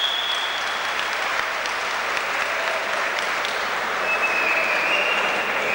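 Spectators in a sports hall applauding, a steady clatter of clapping heard through the reverberant hall. A high, steady whistle-like tone fades out about a second in, and a similar, slightly lower one starts near the end.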